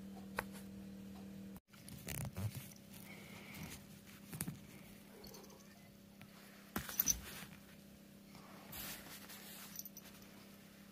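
Faint, scattered rustling of bedding with a few light taps and clicks as a cat shifts about on a duvet, a slightly louder cluster of taps about seven seconds in.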